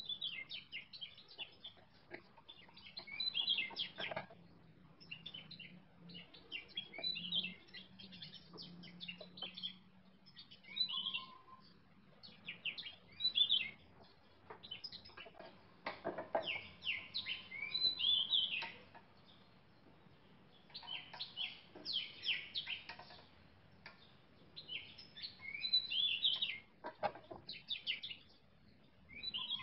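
Birds chirping in short clusters of high calls throughout, with a few light knocks here and there.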